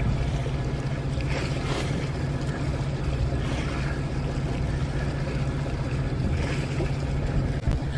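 A boat's engine running steadily with a low hum, under a wash of wind and water noise.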